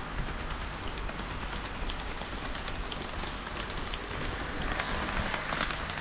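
HO-scale model train of KiHa 40/58 diesel railcar models running on the layout track, a rattle of wheel clicks over the rail joints that grows louder near the end as the cars pass close by.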